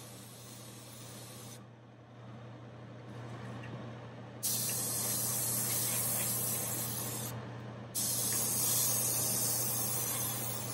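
Airbrush spraying paint in bursts, a soft hiss as the trigger is pressed and released. It stops about a second and a half in, comes back louder about four seconds later, breaks off briefly and starts again. A steady low hum runs underneath.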